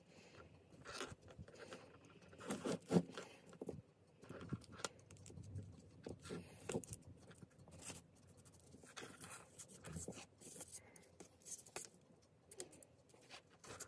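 Small screwdriver turning in the screw terminals of an Arduino Nano carrier board as jumper wires are clamped in and handled, giving faint, irregular clicks and scrapes.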